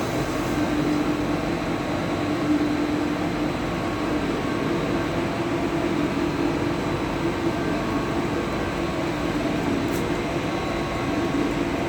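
Plastic net-making machine running steadily: a continuous mechanical drone with a steady hum, and a faint click about ten seconds in.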